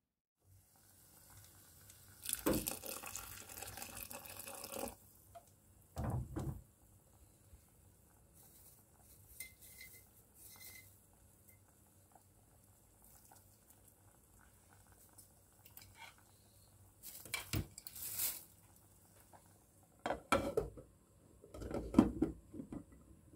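Kitchen clatter at the stove: several bursts of pot and utensil noise over a faint steady hiss of water, the sharpest near the end as a glass pot lid is set down on a pot of boiling potatoes.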